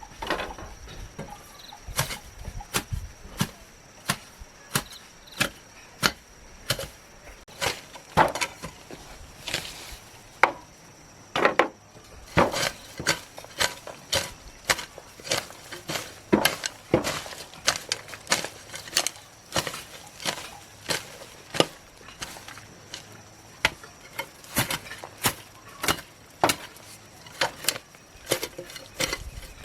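Repeated chopping strikes of a hand tool, a little over one a second with a slightly uneven rhythm, over a faint steady insect tone.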